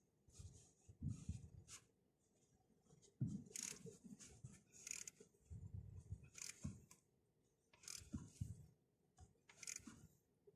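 Faint, irregular short scrapes and clicks of hand tools at work on the oil cooler, coming in bursts with quiet gaps between them.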